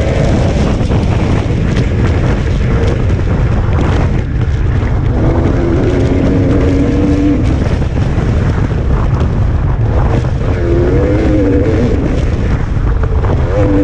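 Off-road motorcycle engine running hard at racing speed, its pitch rising and falling with throttle and gear changes, with heavy wind rushing over the microphone.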